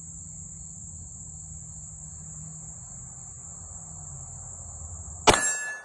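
Crickets chirping steadily, then a single 9mm shot from a Glock 34 pistol about five seconds in, followed by a short ringing tone, typical of a hit on a steel target.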